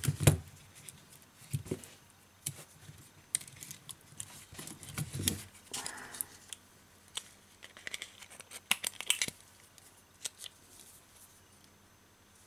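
Irregular small clicks and light knocks from hands handling an opened smartphone, its plastic frame and internal parts, most of them in the first nine seconds and only a few after.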